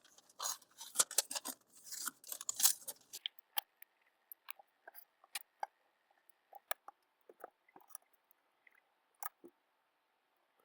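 Kitchen knife rasping in quick, scratchy strokes for about three seconds, then only scattered light clicks and taps.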